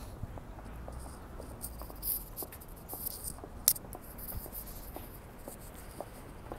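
Footsteps of a person walking at a steady pace over faint background hiss, with one sharp click a little past halfway.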